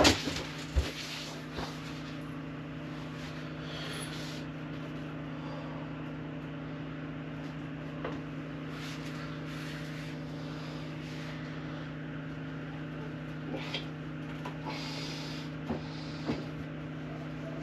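Steady low mechanical hum with a fixed pitch, with a few sharp knocks in the first two seconds and light rustling now and then.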